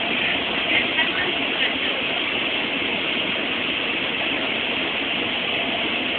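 Steady running noise of a train, heard from inside the carriage.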